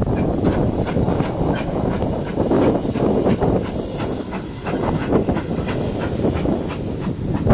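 Steam train: a steady hiss of steam over many irregular clicks and clanks.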